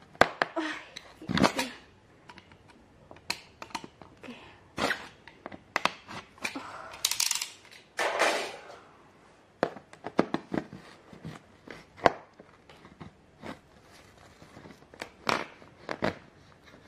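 A blade scraping, clicking and knocking against the suitcase's tough plastic wrapping in irregular short strokes, with a longer scrape about seven to eight seconds in, as it struggles to cut through material that is much harder than expected.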